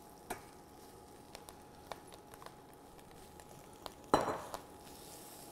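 Kale leaves frying faintly in hot sunflower oil in a stainless steel pan, with scattered light clicks from silicone-tipped tongs turning the leaves. About four seconds in comes one louder, short clatter of the tongs and leaves in the pan.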